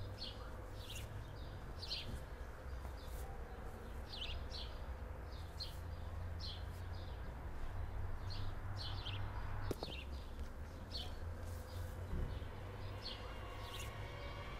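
Small birds chirping: short, quick downward chirps that come every half second to a second, over a low steady rumble, with a single sharp click about ten seconds in.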